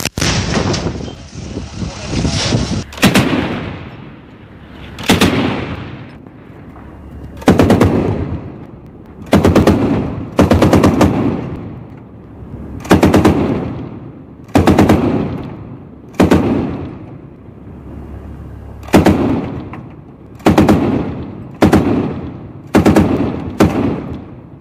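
A 40 mm automatic anti-aircraft gun firing for about the first three seconds. Then a 14.5 mm KPV heavy machine gun fires about a dozen short bursts of several rounds each, one to three seconds apart.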